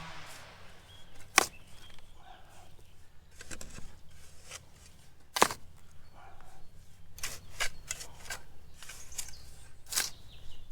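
Scattered sharp knocks and clicks a few seconds apart, the three loudest about a second and a half, five and a half and ten seconds in, over a faint low hum.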